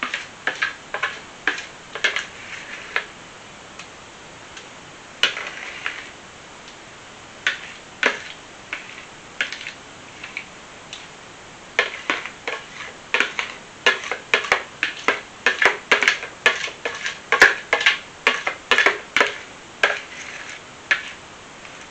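Aluminium foil being handled and crinkled: sharp, irregular crackles, scattered at first, then coming thick and fast through the second half.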